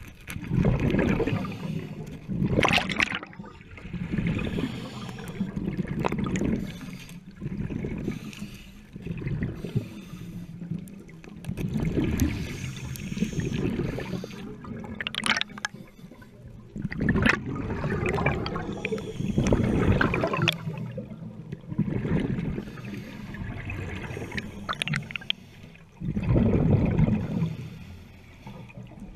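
Underwater sound of a scuba diver's regulator breathing, with exhaled air bubbles gurgling in loud swells every few seconds.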